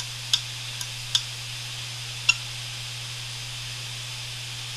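Opened hard disk drive running with its cover off: a steady low hum and a high hiss from the spinning platter. Three sharp clicks come from the drive as the head arm is handled, the loudest about two seconds in.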